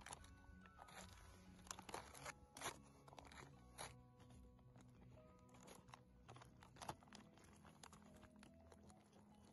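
Foil-lined freeze-dried meal pouch crinkling and crackling as a spoon stirs the food inside and hands work the pouch, in irregular crackles that are sharpest in the first four seconds. Faint background music runs underneath.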